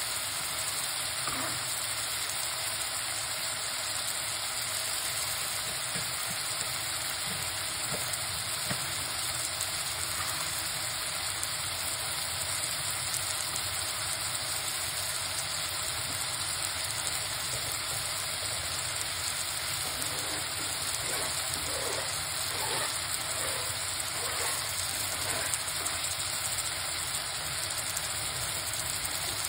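Chopped vegetables (tomato, carrot, onion, scallion and thyme) sizzling steadily in an aluminium pot on the stove, with a few faint crackles.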